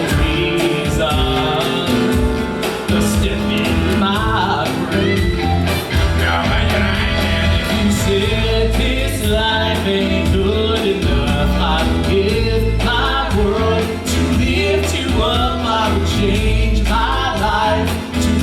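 Loud rock-and-roll show music with a singer over a steady beat, played through a stage sound system.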